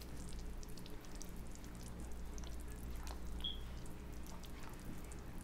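Silicone spatula stirring thick barbecue sauce in a saucepan: faint wet squishing and light scrapes against the pan, over a low steady hum.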